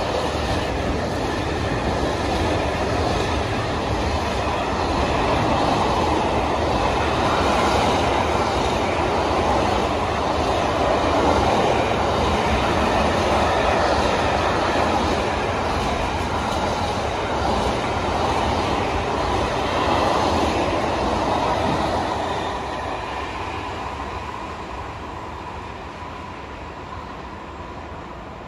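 Container freight train rolling past at close range, its loaded flat wagons running steadily over the rails. Over the last several seconds the sound fades as the end of the train moves away.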